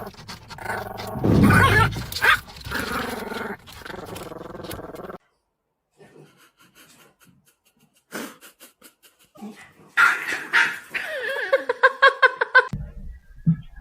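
A dog vocalizing, growling and barking, with a brief silence partway through; near the end a quick run of pitched calls, about five a second.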